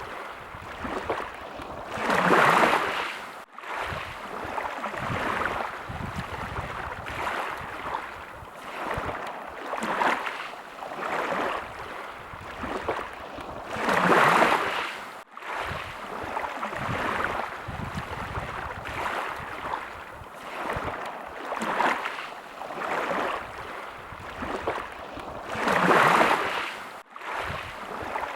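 Small waves lapping at the water's edge: a steady wash that swells every second or two, with a bigger surge about every twelve seconds.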